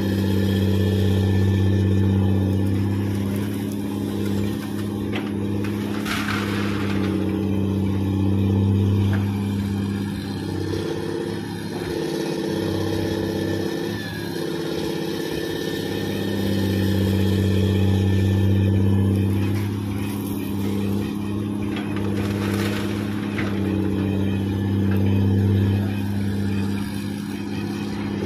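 Diesel engine of a Komatsu PC200 hydraulic excavator running while loading, its steady note swelling and easing repeatedly as the machine works. A brief rushing noise comes about six seconds in and again about twenty-two seconds in.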